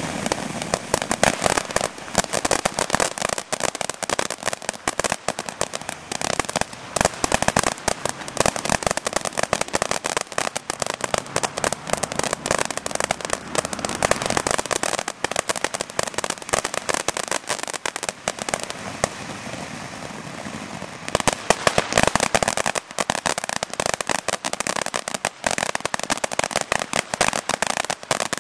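High Yield fountain firework burning: a rushing hiss of spraying sparks over dense, rapid crackling all through, with a louder surge of crackles about three-quarters of the way through.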